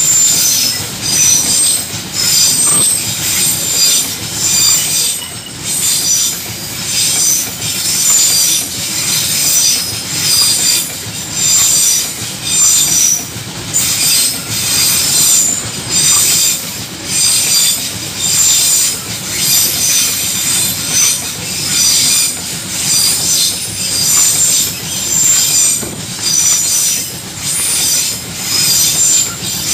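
Long freight train of open-top wagons rolling past: steel wheels squealing and screeching against the rails over a low rumble. The sound swells and eases in a steady rhythm a little under once a second as the wagons' wheelsets go by.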